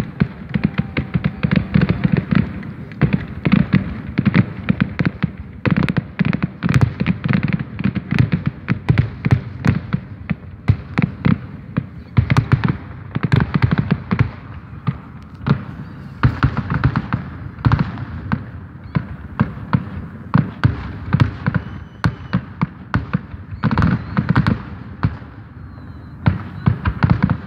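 Fireworks going off in a rapid, dense string of sharp bangs and crackles, several a second, with only brief lulls.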